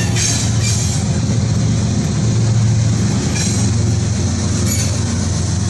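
Freight train tank cars rolling slowly past close by: a steady low rumble of wheels on rail, broken three times by short, high wheel squeals. A CSX diesel locomotive placed mid-train comes up alongside near the end.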